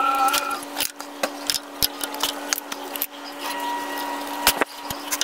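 Scattered sharp metallic clicks and knocks of hand tools and drum-brake hardware being worked against the brake backing plate.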